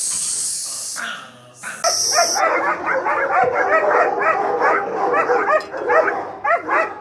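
A second or so of hissy noise, then from about two seconds in a young female German Shepherd barking rapidly and continuously, about four barks a second, as she lunges at a hanging bite sack.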